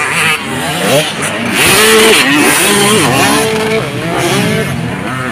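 Several motocross dirt bikes racing, their engines revving up and down over and over as they take the track's jumps; loudest around two seconds in.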